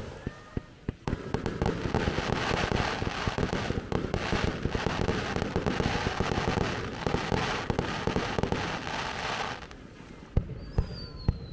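Aerial fireworks bursting: a dense run of rapid crackling bangs that stops about ten seconds in, followed by a few separate bangs.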